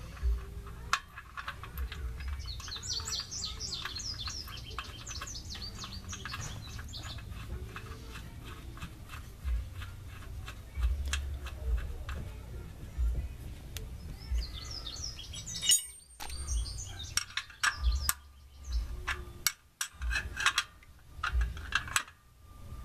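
Small birds chirping in two bursts of song. Under them runs a string of light clicks and low bumps as the oil drain plug is threaded back into the oil pan by hand and a wrench is set on it.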